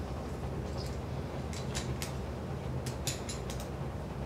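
Steady low hum under scattered small clicks and taps of metal instruments being handled, with a quick cluster of clicks about three seconds in.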